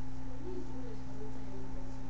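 Steady electrical hum, with a faint wavering tune from about half a second to a second and a half in.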